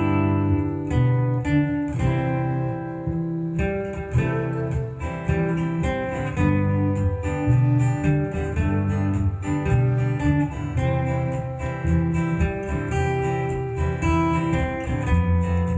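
Instrumental background music played on a plucked acoustic guitar, a continuous run of picked and strummed notes.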